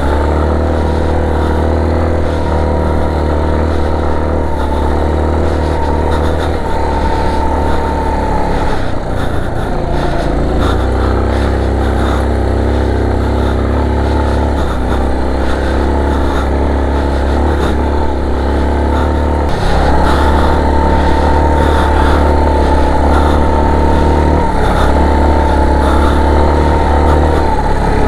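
Motorcycle engine running while riding a trail, its pitch shifting several times with throttle and gears, and a little louder from about two-thirds of the way through.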